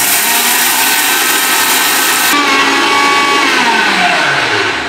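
Prestige Iris 750-watt mixer grinder's motor running at full speed, grinding chana dal into besan in its steel dry-grinding jar with a loud whirring and rattling. The harsh hiss drops off abruptly about two seconds in, and near the end the motor is switched off and its whine falls as it spins down.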